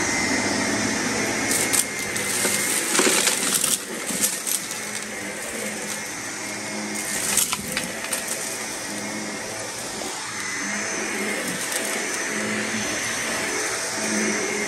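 Upright vacuum cleaner running over dirt, its motor giving a steady hum and whine while grit crackles and ticks up through the brushroll and hose, busiest a couple of seconds in.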